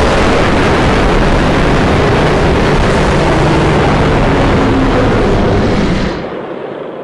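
A custom-made Galactus monster roar sound effect: one long, loud, rough, rumbling roar that holds for about six seconds and then fades away near the end.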